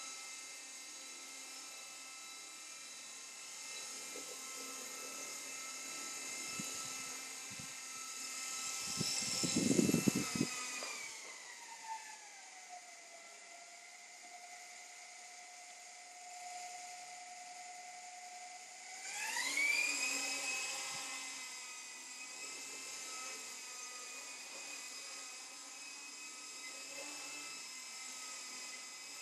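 Electric motors and rotors of a Walkera Dragonfly 4#1 micro RC helicopter whining, with a louder low rumble about ten seconds in. The whine then falls to a low steady tone for several seconds, throttled down while the helicopter sits on the floor, and rises again near twenty seconds as it spools back up.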